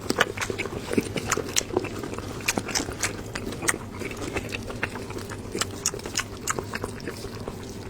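Close-up mouth sounds of a person chewing and biting braised lamb head meat, with many short wet smacks and clicks at irregular intervals.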